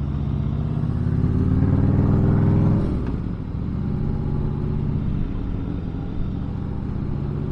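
Harley-Davidson Softail Fat Boy Lo's V-twin engine under way: it rises in pitch as the bike accelerates, drops off sharply about three seconds in as the throttle is rolled off, then runs on steadily at lower revs.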